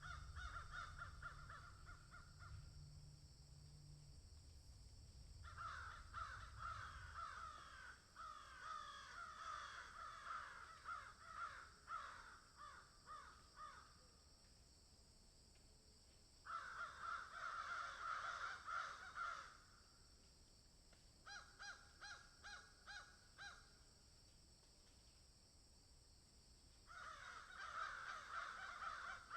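Crows cawing in bouts separated by pauses of a few seconds: several birds calling over one another at times, and a run of short, evenly spaced caws about two-thirds of the way through.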